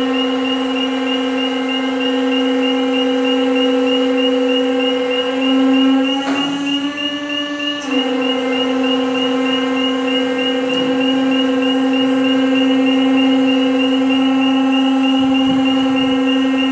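Polyurethane mould press running with a steady, loud mechanical hum and whine. Its pitch shifts briefly up about six seconds in for under two seconds, then it settles back.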